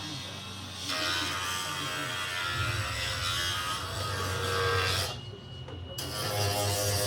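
Arc welding on steel balcony fittings: a steady buzzing, crackling hiss over a low hum, which breaks off for under a second about five seconds in and then starts again.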